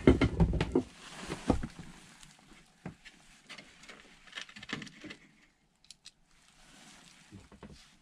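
Handling noise of someone working by hand in a cramped attic space: a burst of knocks and clatter in the first second and a half, then scattered clicks and rustling that die away, with a few more clicks near the end.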